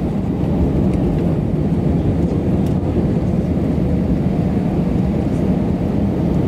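Steady cabin noise of an Airbus A319 on final approach, the engines and rushing air heard from inside the passenger cabin with the flaps extended.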